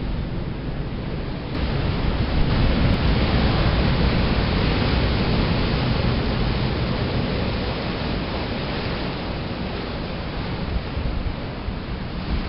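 Ocean surf breaking on a rocky shore: a steady rush of water that swells about a second and a half in and slowly eases toward the end.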